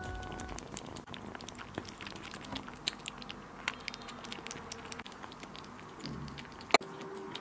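Kittens eating from a glass dish: soft, irregular wet clicks of licking raw egg yolk and chewing shrimp, with one sharper click near the end.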